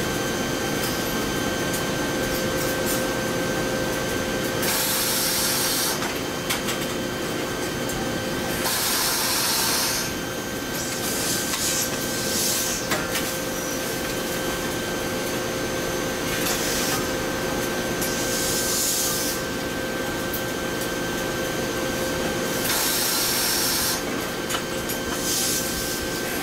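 Automatic shirt ironing machines running with a steady hum. A loud hissing blast, about a second long, comes every few seconds, and there are a couple of sharp clicks.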